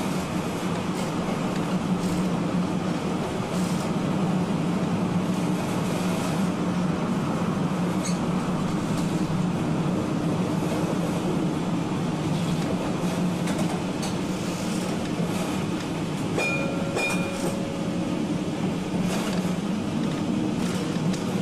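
Ex-Melbourne W2-class electric streetcar running along its track, heard from its front end. There is a steady rumble of wheels and motors with a few faint clicks, and a brief high tone heard twice about three-quarters of the way through.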